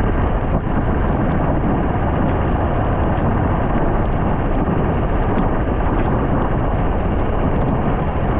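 Steady, loud rushing noise of heavy rain and a vehicle on a wet road, with faint scattered ticks of drops.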